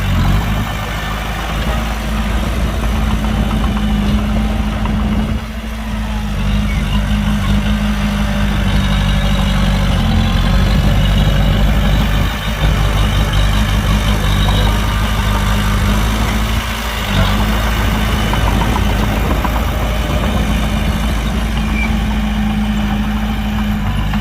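Heavy diesel engine of earthmoving machinery running steadily at an even pitch, briefly dipping a few times.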